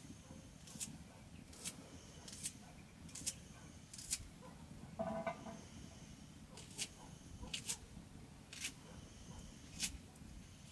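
Small kitchen knife cutting green onion held in the hand over a pot, a crisp snip roughly once a second. A short animal call sounds about halfway through.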